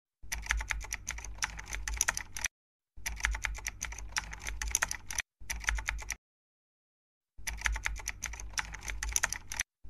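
Computer keyboard typing sound effect: rapid clicks of keys in four runs, cut off by short spells of dead silence, the longest about six seconds in.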